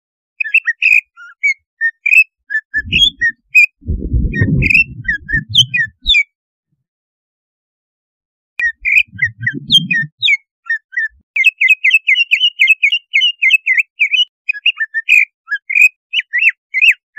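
Greater green leafbird (cucak ijo) singing in quick, sharp chirps and whistles, breaking off for about two seconds a third of the way in and then pouring out a fast run of notes in the second half; a few bursts of low muffled noise come in during the first half. It is a bait song ('pancingan') meant to rouse other cucak ijo to aggressive, fired-up singing.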